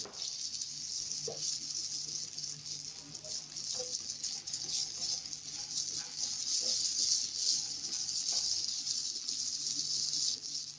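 Sprouted chana and diced potato frying in butter in a kadai, with a steady sizzle and a few light clicks of stirring.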